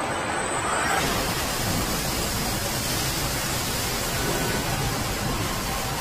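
Steady, even hiss-like machinery noise of an automated car body shop, with faint thin whines near the end.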